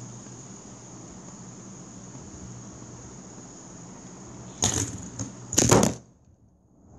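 A steady high-pitched chirring like crickets over a faint hum, broken by two loud rustling bursts about four and a half and five and a half seconds in. The sound then cuts out almost to silence.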